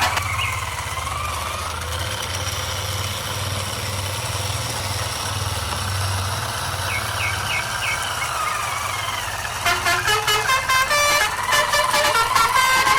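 A steady low motor hum with a slowly gliding whine above it, as of a model truck running. About ten seconds in it gives way to a quick run of changing pitched tones, like a horn tune.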